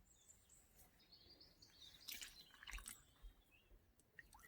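Near silence, with faint bird chirps in the background and a few soft clicks about two seconds in.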